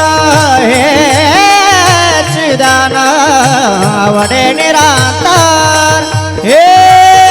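Marathi kirtan devotional singing: a voice drawing out long ornamented notes of the panchpadi over a steady instrumental accompaniment and a regular drum beat. Near the end the voice slides up into a long held note.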